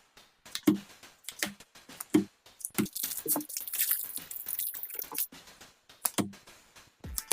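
Hands opening and handling a trading-card blister pack: scattered clicks and taps, with a stretch of packaging crinkling about three seconds in that lasts roughly two seconds.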